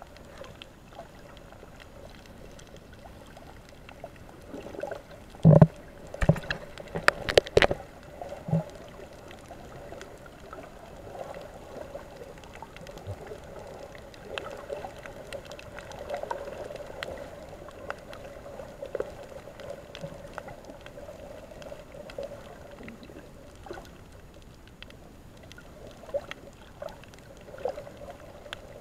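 Underwater sound heard through a camera's waterproof housing: a muffled, steady hum. Several loud knocks come in a cluster about six to eight seconds in, with a few fainter ones later.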